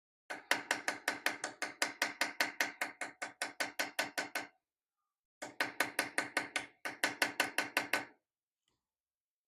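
Rapid, light hammer taps on a small steel tool against a wrought iron sword cross-guard, about six or seven a second, each a sharp metallic click with a short ring; two runs with a pause of about a second in the middle. The tapping is inlay work, cutting or setting copper into the iron.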